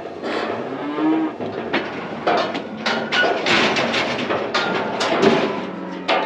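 Cattle mooing: one call about a second in and a low one near the end, among sharp knocks and rattles.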